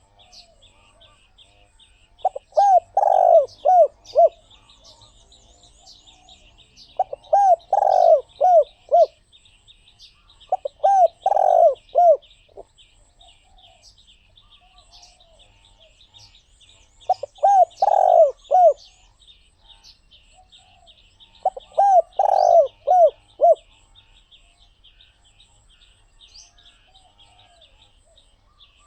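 Spotted dove cooing: five phrases of several rounded notes each, a few seconds apart. A faint, steady, rapid high chirping runs behind them.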